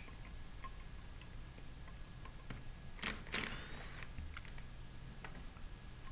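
Faint scattered clicks and light rattles of loosened bolts being handled by hand on a plastic diaphragm pump's outer chamber, with two slightly louder scraping clicks about three seconds in.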